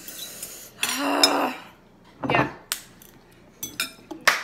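A ceramic bowl and a metal fork clinking and scraping as the bowl is handled on a table, with a few sharp clicks near the end.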